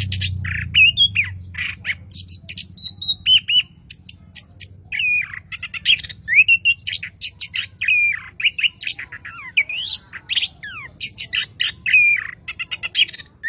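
Chestnut-capped thrush ('anis kembang') singing a varied song: quick sliding whistles mixed with harsh, clicky chatter, in bursts with short pauses.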